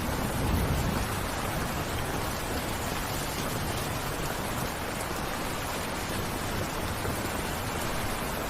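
Steady, even rain falling, with a brief low rumble swelling about half a second in.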